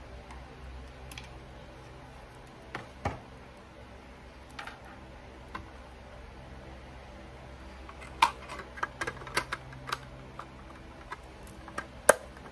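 Hard plastic clicks and taps as a CD is handled and fitted into a wall-mounted CD player and its clear front cover is worked. There are a few scattered clicks, a quick run of clicks partway through and the sharpest click near the end.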